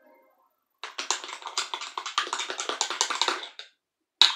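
Glue slime being stirred with a popsicle stick and poked by hand as activator is mixed in: a dense run of quick sticky clicks starting about a second in, stopping briefly near the end, then starting again.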